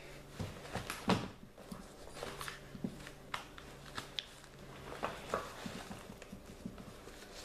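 Cloth rustling and scattered light knocks as fabric items are handled close to the microphone, with a sharper knock about a second in. A faint steady hum runs underneath for a few seconds in the middle.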